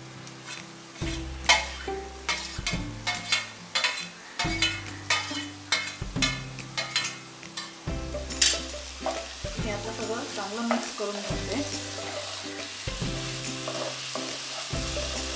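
Spatula stirring cooked rice into bubbling jaggery-coconut syrup in a nonstick pan: a run of sharp taps and scrapes in the first half, then a steady sizzle under the stirring from about eight seconds in.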